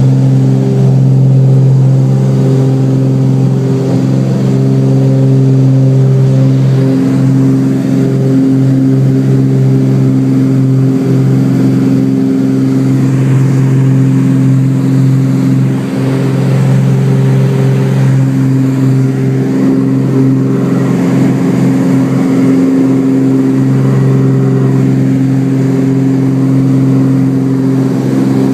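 Twin piston engines and propellers of a Cessna 402 running steadily at full takeoff power, heard inside the cabin: a loud, even drone through the takeoff roll and climb-out.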